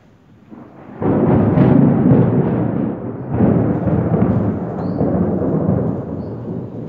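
Thunder close by: a sudden loud crack about a second in, then a low rolling rumble that swells again about two seconds later and slowly fades.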